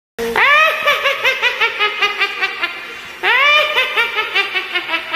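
High-pitched laughter, a rapid string of 'ha-ha-ha' that trails off and then starts again about three seconds in.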